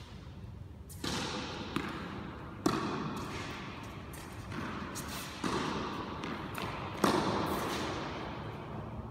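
Tennis balls struck with a racket and bouncing off the court and walls: a series of sharp pops and thuds at irregular intervals, the loudest about a second in, near three seconds, around five and a half and about seven seconds in. Each hit rings on in a long echo from the large hall.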